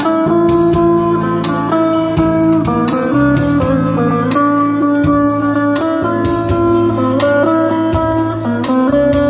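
Instrumental break in Kurdish folk-pop band music: a plucked-string lead melody over sustained bass notes and a steady beat.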